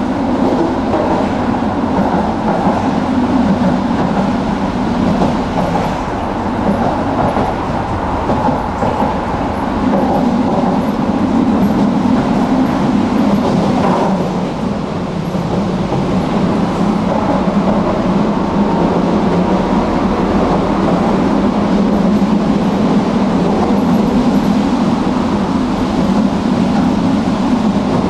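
Tram running along its rails, a steady loud rolling rumble of wheels on track that eases briefly about halfway through.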